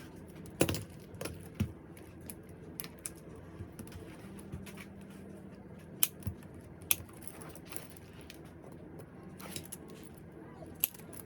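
Irregular small clicks and light metallic clinks of hand work on an umbrella's metal frame and tools, a few of them sharper and louder.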